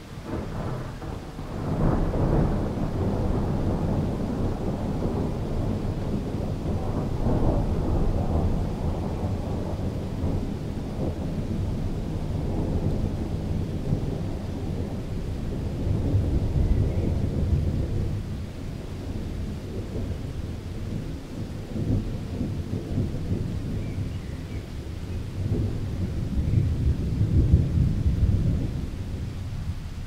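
Thunder breaks suddenly and rolls on in a long, deep rumble that swells and fades several times, with a last swell near the end.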